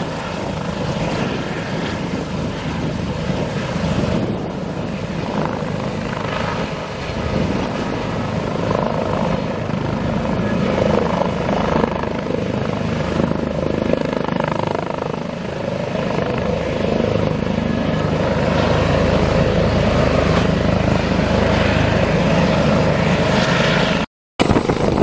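Two Airbus H145 twin-turbine helicopters running, one lifting off and hovering: a steady rotor and turbine drone that grows louder over the last several seconds. It breaks off abruptly near the end.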